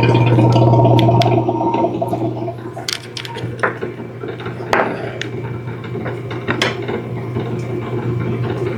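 A steady low electrical hum, louder for the first second or so, with a few sharp metallic clicks and clinks of small parts being handled.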